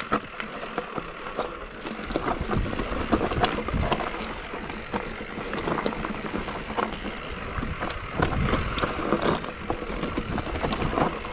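Mountain bike descending a rough trail at speed: tyres crunching over dirt and rocks, with a constant clatter of many irregular knocks and rattles from the bike.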